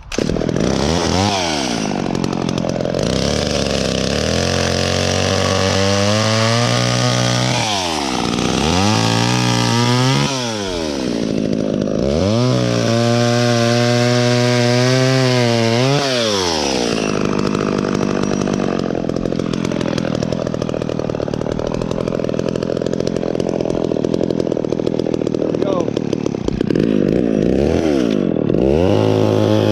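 Two-stroke chainsaw cutting dead branches. It is opened up to full revs and held there, then drops back toward idle and revs again, about half a dozen times.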